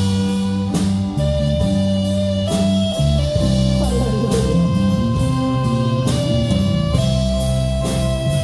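Live church worship band playing an instrumental passage between sung verses: held guitar chords over bass and drum kit. A single "aleluya" is voiced over it about halfway through.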